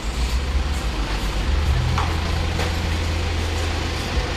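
Low steady rumble of a minibus engine idling, with two light clicks a little over halfway through.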